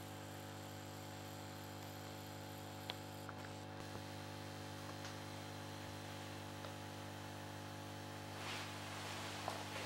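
Steady mains hum from an old 125 W choke ballast powering a lit 1970 Tesla RVL 125W mercury vapour lamp. One sharp click comes about three seconds in, and a brief rustle near the end.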